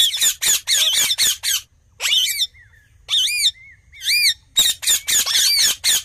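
Indian ringneck parakeets squawking: fast runs of harsh screeches, several a second, with a few separate rising-and-falling calls in a short lull in the middle.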